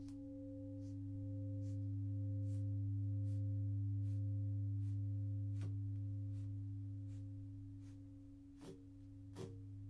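A sustained low ringing tone with higher overtones, one of which pulses slowly; it swells over the first few seconds and then fades. Faint soft ticks recur about every two-thirds of a second, with two sharper ticks near the end.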